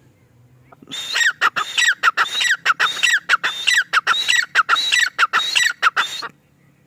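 Male grey francolin (teetar) calling: a loud run of harsh, rapidly repeated notes that starts about a second in, lasts about five seconds, then stops.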